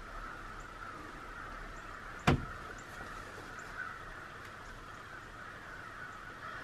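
A single sharp knock a little over two seconds in, against a steady faint high hum.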